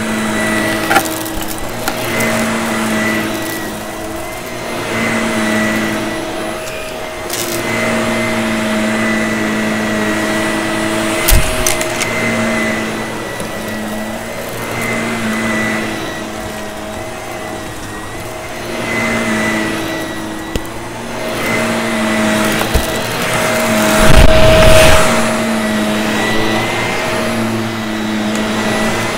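A vacuum cleaner running with a steady motor hum, its noise swelling and fading in strokes about every two seconds as it is pushed back and forth. A few sharp clicks, as of debris being sucked up, and a low, loud rumble near the end.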